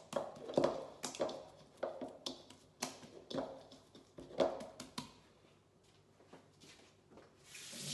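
A hand patting and rubbing oil over soft, wet naan dough in a mixing bowl: irregular soft slaps and squelches with light knocks, thinning out after about five seconds. A steady hiss starts near the end.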